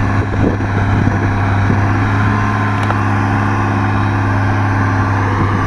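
Engine of a grass mower running steadily at a constant pitch while mowing.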